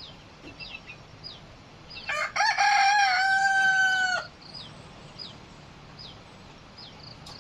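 A rooster crows once, a loud call of about two seconds starting about two seconds in. Throughout, a small bird repeats short, high chirps that slide downward in pitch.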